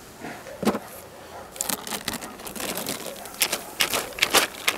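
Plastic cellophane inner-cover sheet crinkling and crackling as it is peeled off the top bars of a beehive: irregular sharp rustles, sparse at first and coming thick and fast near the end.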